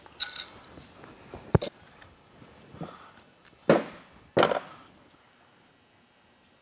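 Workshop handling noises as a bare aluminium cylinder head is moved and set down on the bench: a sharp click about a second and a half in, then two short knocks a little under a second apart near the middle, after which it goes quiet.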